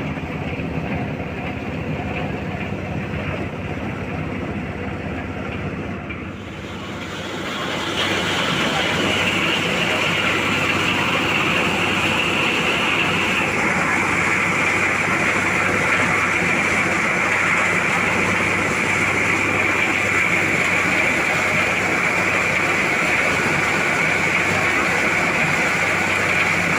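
Engine-driven corn sheller running. It hums steadily for about six seconds, then grows louder and rushes and rattles as it comes under load threshing maize cobs, and holds steady from there on.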